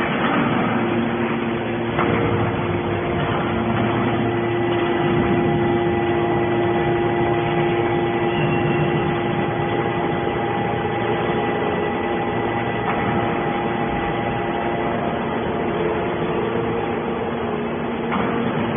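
Hydraulic horizontal metal baler line running: a steady machine hum with a few held whining tones over a dense mechanical noise, with small changes about two seconds in and near the end.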